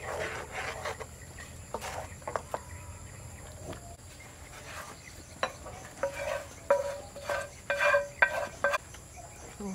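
Wooden spoon stirring thick chili sauce in a frying pan, then scraping the pan out into a glass bowl. Near the end come several sharp knocks and clinks with a short ring. Crickets chirp steadily in the background.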